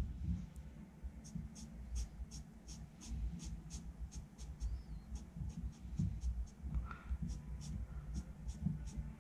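Half-dry Sakura Pigma Micron brush pen swept across drawing paper in short, quick feathering strokes, about three a second, with a soft scratchy rasp on each stroke.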